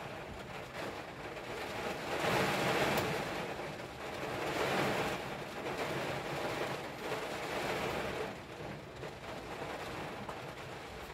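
Heavy rain drumming on a car's windshield and roof, heard from inside the car, a dense hiss that swells and eases in waves.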